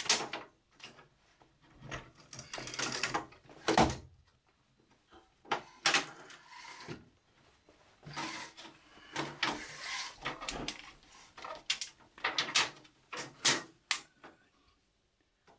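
Retractable steel tape measure being pulled out along a wooden shelf frame and let back in, giving a string of sharp clicks, short scrapes of the blade and knocks on the timber.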